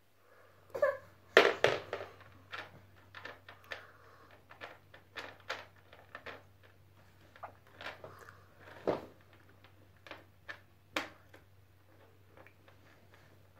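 Plastic baby walker clattering: irregular knocks and clicks as the baby handles the tray and shifts the walker, loudest in a cluster about a second and a half in.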